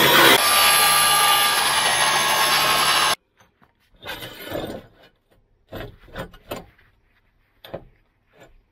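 Power grinder working metal overhead, a loud steady grinding that stops abruptly about three seconds in. It is followed by a few short, quieter scrapes and knocks.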